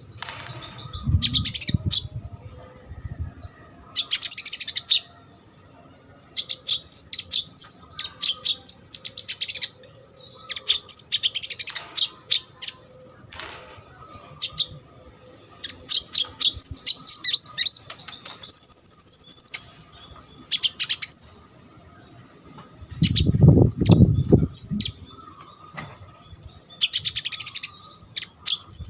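Konin (kolibri ninja sunbird) singing: repeated bursts of rapid, high twittering and chattering notes with short pauses between them, and a brief steady high whistle about two-thirds of the way through. There are low thumps near the start and a louder low rumble a few seconds before the end.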